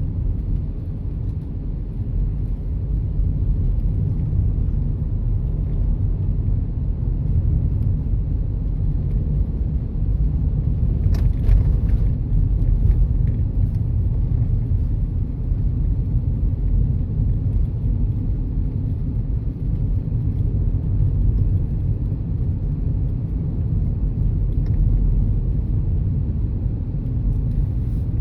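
Car driving at a steady speed, heard from inside the cabin: a steady low rumble of road and engine noise.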